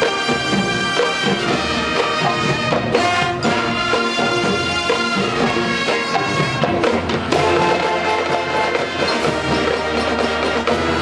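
Marching band playing: brass section with percussion, loud and full. About seven seconds in the music settles into a held chord over a low, sustained bass note.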